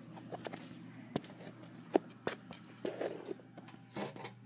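Handling noise from a camera moving against and inside a speaker cabinet: scattered light knocks and clicks with brief rubbing scrapes, over a steady low hum.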